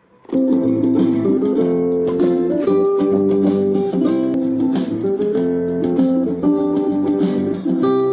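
Recorded plucked-guitar music, cutting in abruptly just after the start and then playing steadily and loud.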